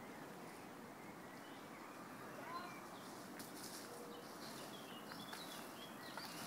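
Faint outdoor background noise with a few short bird chirps, most of them in the second half.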